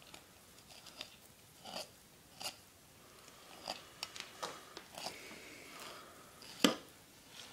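Fillet knife scraping and crunching along a walleye's rib cage, cutting the fillet free: a series of quiet, irregular scraping strokes, with one sharper click near the end.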